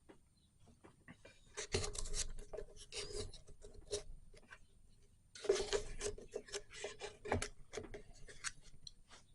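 Small clicks, rubs and scrapes of plastic and metal lock parts being worked loose by hand from a motorcycle top box, in two spells of a few seconds each.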